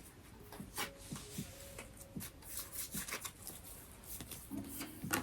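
Tarot cards being shuffled and handled: a light papery rustle with scattered soft taps and clicks.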